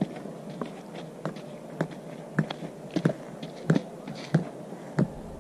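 Footsteps on the ground, about three steps every two seconds, getting louder in the second half.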